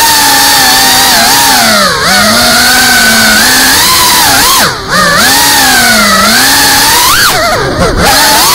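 GEPRC Cinelog35 Performance FPV drone's motors and propellers whining, the pitch swinging up and down constantly with throttle, heard close up from the onboard camera. The whine drops briefly in pitch about two seconds in, again near five seconds and near the end.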